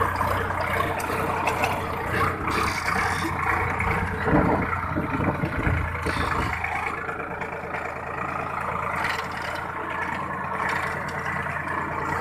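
A motor engine running steadily, its low rumble dropping away about six and a half seconds in.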